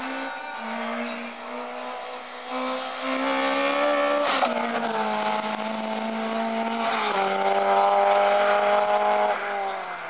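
Racing car's engine at full throttle on a hill slalom run, its pitch climbing as it revs and dropping sharply twice, at upshifts about four and seven seconds in.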